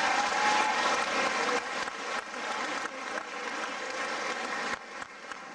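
Audience applauding and cheering, dying down sharply about five seconds in.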